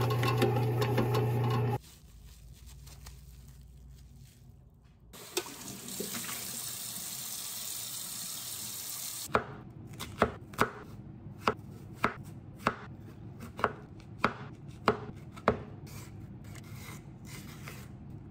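A kitchen knife chopping an onion on a wooden cutting board: about a dozen crisp strokes, roughly two a second, through the middle of the stretch. Lighter scraping from a julienne peeler on a carrot follows near the end. A steady low hum opens the stretch and stops after about two seconds, and a hiss runs a few seconds later.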